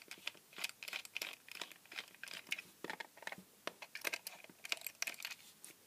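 Small screwdriver scraping and clicking against a plastic plug-in case and its paper sticker, digging for a screw hidden under the label: irregular small clicks and crinkly scratches.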